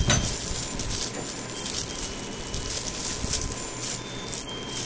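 Handling noises: a thump at the start, then scattered light knocks, clicks and rustling of small objects being moved about.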